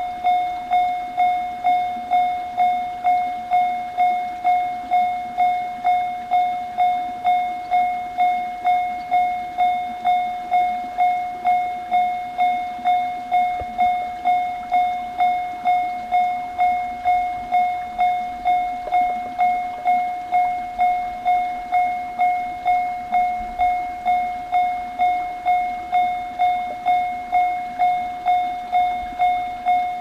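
Japanese railway level crossing alarm sounding its unusual 'pen pen' tone. A steady run of ringing strikes comes a little under two a second, each starting sharp and fading.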